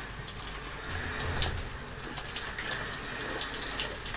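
Flour-coated fish sizzling in hot oil in a frying pan: a steady hiss with many sharp crackles and pops as the pieces go into the oil.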